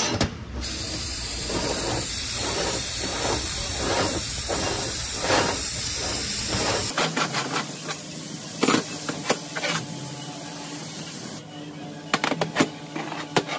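A spray hissing steadily as a transmission part is sprayed down with cleaner. The hiss eases a little about seven seconds in and stops about eleven seconds in, followed by a few light knocks.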